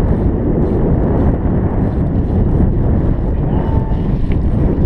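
Steady low rumble of wind buffeting the microphone, mixed with the boat's motor running while trolling.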